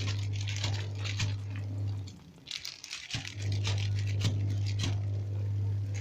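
LG twin-tub washing machine's wash motor humming as the pulsator churns water and clothes, with water sloshing and splashing. The motor stops about two seconds in and starts again a second later, the on-off pattern of a twin-tub wash cycle.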